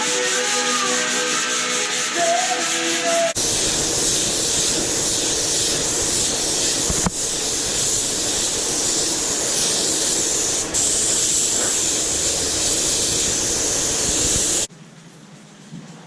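Background music for about three seconds, then a hard cut to a steady, loud hissing rush of abrasive stripping on the Vespa's steel bodywork, which cuts off abruptly near the end.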